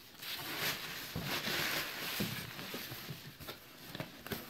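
Cardboard and packing paper rustling as a cardboard box is handled and its flaps are pulled open, with a few light knocks.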